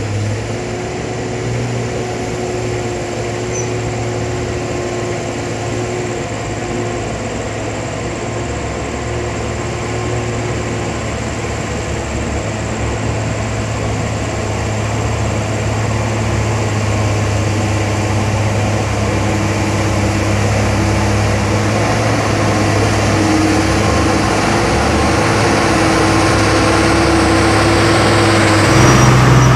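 Hino 500 dump truck's diesel engine running as the truck drives along a muddy road toward the listener. It is a steady hum that grows gradually louder and is loudest near the end, as the truck draws close.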